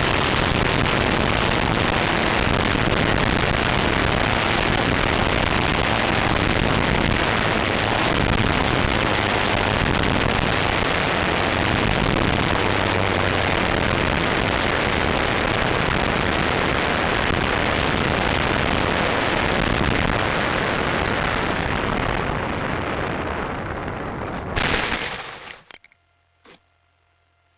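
Steady rush of wind and propeller noise over a tail-mounted camera on a flying radio-controlled model warplane. Near the end the noise fades, a loud short burst cuts in, and then the sound drops away to near silence.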